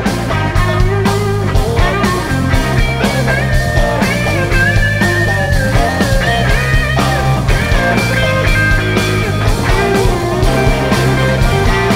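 Live blues-rock band playing an instrumental passage: an electric guitar lead with bent notes over electric guitar, bass and a steady drum beat.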